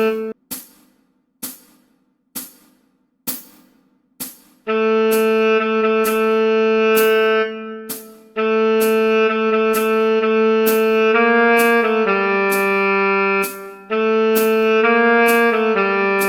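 A sharp click about once a second counts in for some four seconds. Then a tenor saxophone plays long held notes in a slow line over the continuing clicks.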